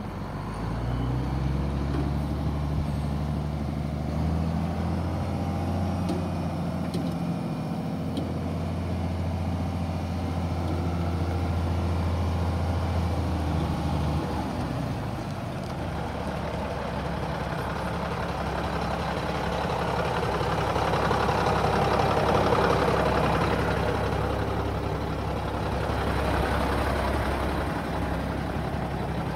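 Diesel engine of a 1994 Mack CH613 tandem-axle truck tractor running as the truck drives, its low note stepping up and down in pitch through the first half. A louder rushing noise builds in the second half.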